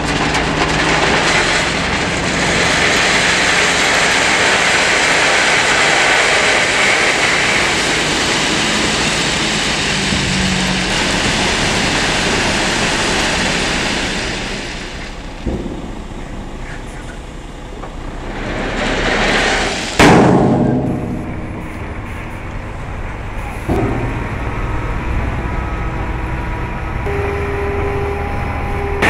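Tipper trailer unloading: a long, dense rush of gravel sliding out of the raised steel body over the low hum of the truck's diesel engine. It eases off around the middle, then builds to a loud crash about twenty seconds in, followed by a steadier engine hum.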